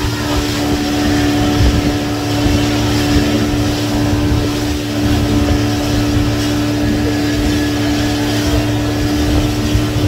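Motorboat engine running steadily at speed, a constant drone under the rush of water along the hull, with wind buffeting the microphone.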